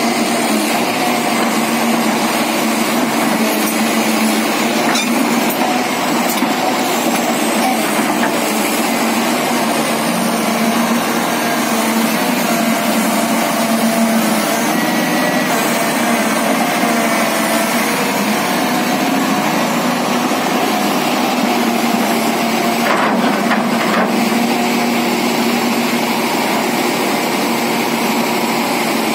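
Komatsu PC450 hydraulic excavator's diesel engine running steadily under work, with a couple of brief knocks about 23 seconds in.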